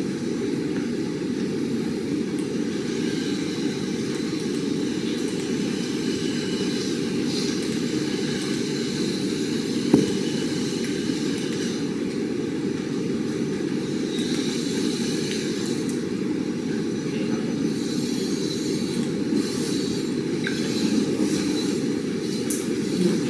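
Steady low rumbling background noise with a faint hiss above it, and a single sharp click about ten seconds in.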